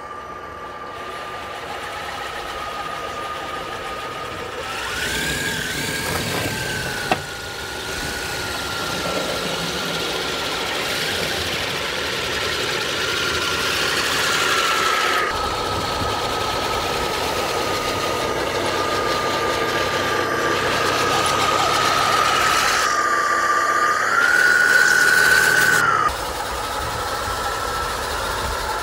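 Custom electric 6x6 RC truck on tracks, driven by four brushless motors, pushing snow with its plow: a steady electric whine that climbs in pitch for a moment twice, over the hiss of snow and tracks.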